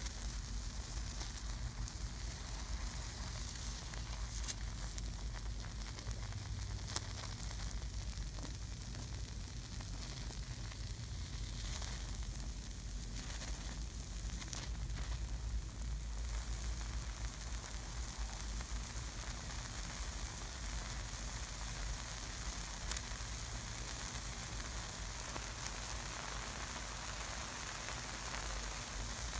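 Concentrated sulphuric acid fizzing and sizzling as it chars and dehydrates the bread and breading of a McChicken sandwich. There is a steady soft hiss with a few faint crackles scattered through it.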